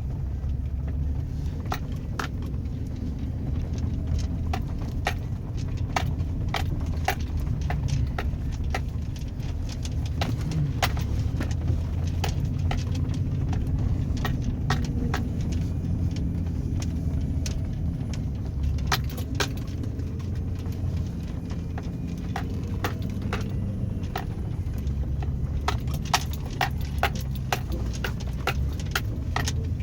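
Chevrolet Avalanche pickup driving off road through snow: a steady low engine and road rumble, with frequent sharp, irregular clicks and rattles over it, coming thicker near the end.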